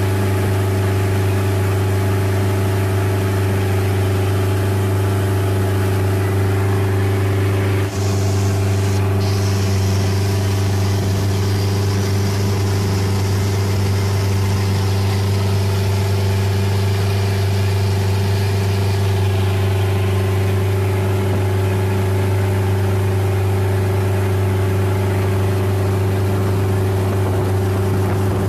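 Boat engine running steadily at a constant pitch while under way, with a brief dip about eight seconds in.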